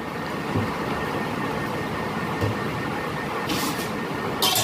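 Black hand-wheel domestic sewing machine running steadily, its needle mechanism rattling as it stitches through cloth, with two brief sharp clicks near the end.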